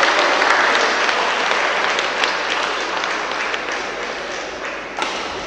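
Spectators applauding, the clapping steadily dying away, with a single sharp knock near the end.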